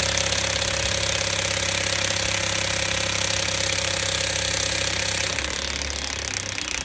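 Pneumatic tool at a tire repair, most likely an air impact wrench on the lug nuts, running with a fast hammering rattle. It runs steadily, then eases off about five seconds in and dies away near the end.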